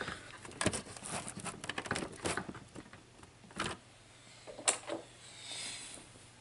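Clicks and rustles of cables and connectors being handled and plugged in on an opened Amiga 500 motherboard: a quick run of clicks, then a couple of single clicks, and a soft hiss near the end over a faint steady hum.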